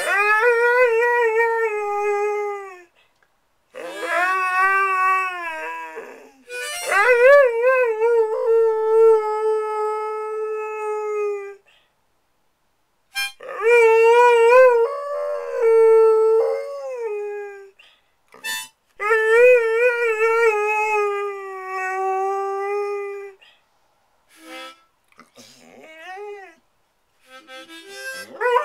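A dog howling along with a harmonica in long, wavering, sliding notes, in several phrases broken by short pauses.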